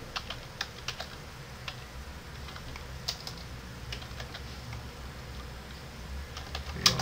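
Computer keyboard typing in irregular keystrokes, with a sharper click near the end.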